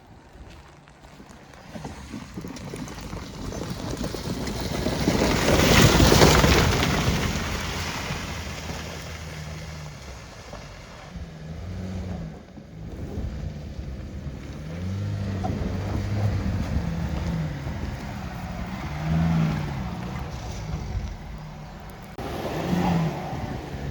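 Dacia Duster 1.3 TCe turbocharged four-cylinder petrol engine revving up and down as the 4x4 drives through mud, with a loud rush of splashing mud and water peaking about six seconds in.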